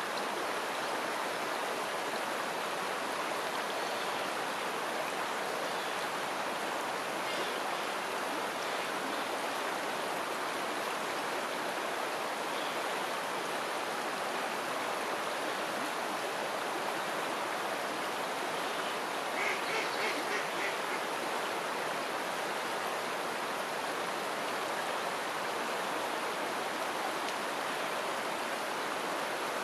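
River water flowing and rushing steadily. About two-thirds of the way through, a short run of quick, high calls rises briefly above the water.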